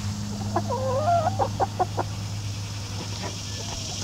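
Backyard hen calling: one drawn-out, wavering call about half a second in, followed by a few short clucks, and a fainter short call near the end.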